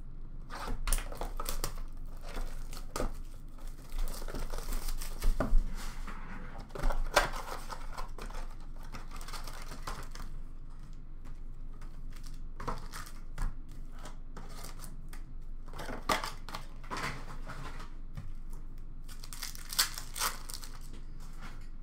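Cardboard hockey-card blaster box flaps and card-pack wrappers being torn open and crinkled, with cards handled. The rustles and snaps come in irregular clusters, busiest at the start and again near the end.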